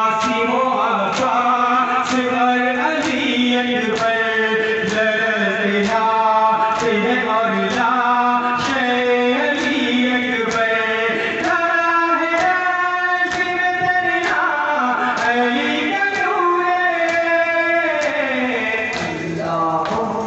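Male voices singing a nauha, a Shia lament, in a chanting style, with regular chest-beating (matam) strikes about every three-quarters of a second keeping the rhythm.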